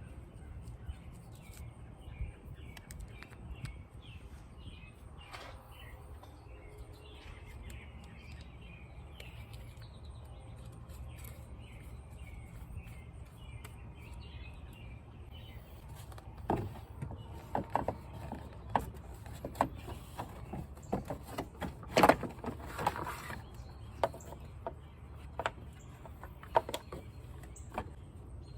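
Birds chirping over a steady low background rumble. Past the middle comes a string of sharp clicks and knocks from hand work on the car battery's terminals, the loudest about three-quarters of the way through.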